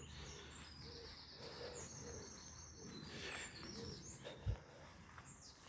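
Birds singing faintly, a run of high chirps and short trills, with a brief low thump about four and a half seconds in.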